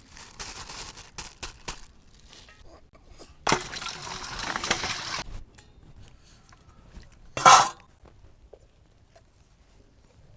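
Kitchenware being handled during food preparation: scattered clinks and knocks, a longer rough scraping or rustling noise lasting nearly two seconds, then one loud sharp clatter.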